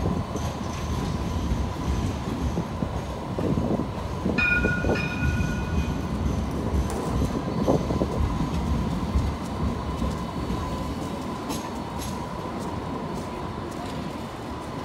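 Alstom Citadis X05 light rail tram running past on street track and slowing into a stop: a steady rumble of wheels and electric drive that eases slightly in the second half. A brief pitched tone sounds about four seconds in.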